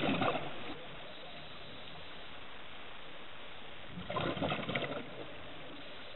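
Scuba diver's regulator exhaust bubbles: two bursts of bubbling, one at the start and one about four seconds in, each lasting about a second, over a steady underwater hiss.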